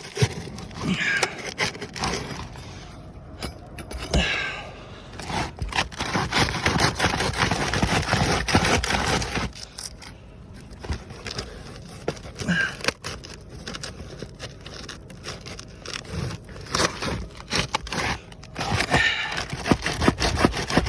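Asphalt shingle being scraped and pried loose from a roof, with repeated scraping, cracking and clicking as it is worked against the nails holding it; a long stretch of steady scraping comes about a third of the way in.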